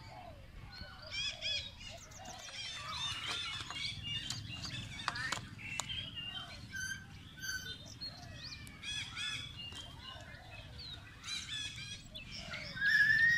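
A mixed chorus of small birds chirping and trilling, with many short calls overlapping throughout. A louder rising whistle comes near the end.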